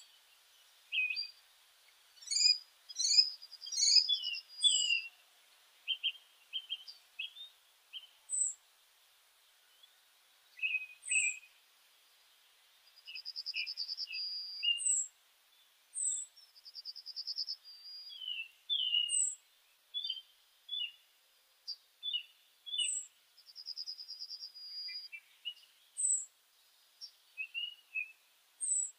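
Birds chirping and singing: many short high chirps and quick rising notes, with a buzzy trill coming back every few seconds.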